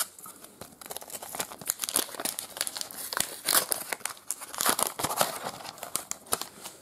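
Thin Panini sticker-pack wrapper being torn open and crinkled by hand: an irregular run of crackles.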